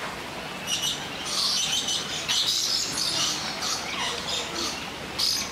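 Aviary birds, lorikeets among them, squawking and chattering: a dense run of shrill calls, busiest in the middle, with one sharp squawk near the end.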